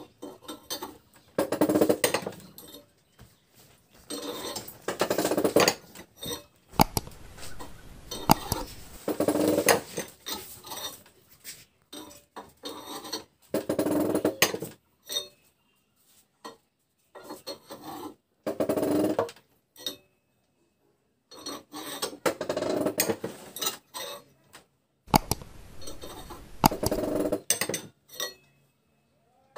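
Metal scraping and creaking of a hand-turned homemade screw puller as its threaded rod forces the shaft out of an e-rickshaw motor's magnet rotor, in repeated strokes of a second or two with short pauses between them.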